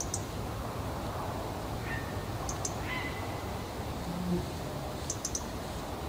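European robin calling in short, high ticks, two or three in quick succession, repeated three times. It is the nervous call of a robin disturbed by a person nearby, which the recordist takes as a sign of fledglings close by.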